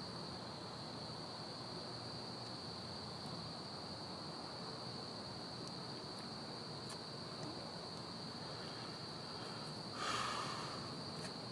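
Faint, steady high-pitched insect trilling, like crickets at night, over low background hiss, with a brief swell of noise about ten seconds in.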